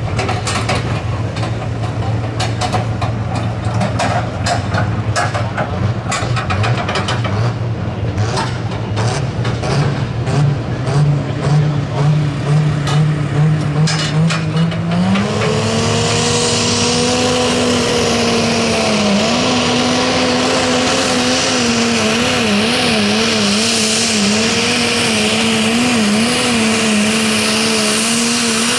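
Pro Stock pulling tractor's turbocharged diesel engine running loudly at a lower pitch. About halfway through it climbs to a high, held engine note with a loud hissing rush over it as the pull gets under way. The note wavers up and down as the tractor works against the sled.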